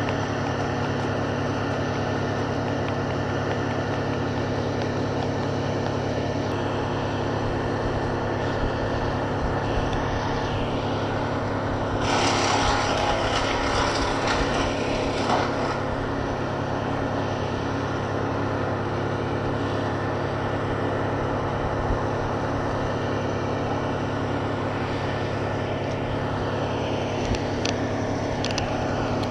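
An engine runs steadily at a constant speed. About twelve seconds in, a louder rushing noise rises over it for about three seconds.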